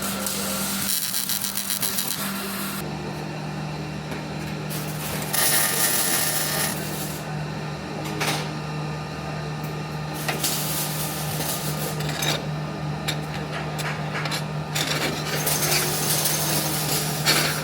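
MIG welding in a welding shop: arcs crackling and sizzling in bursts of one to a few seconds, with a steady machine hum underneath.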